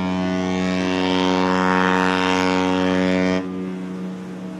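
A ship's horn sounding one long, deep blast that stops abruptly about three and a half seconds in.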